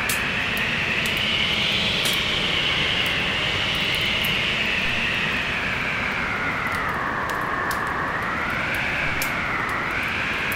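Storm wind howling over a steady roar, its whistle rising and falling slowly in pitch, with scattered sharp crackles of a wood fire burning in a fireplace.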